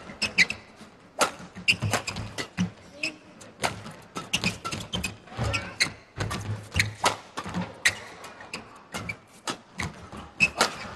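Badminton rally in a large hall: a string of sharp racket hits on the shuttlecock and thuds of players' feet on the court, coming irregularly, with crowd voices underneath.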